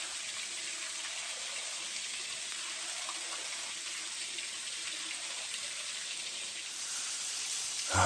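Small waterfall spilling over rock ledges into a pool: a steady, even hiss of falling water.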